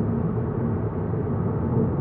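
Volkswagen Golf GTI mk7.5 on the move, heard from inside the cabin: a steady low drone of its turbocharged four-cylinder engine and tyre noise on the road.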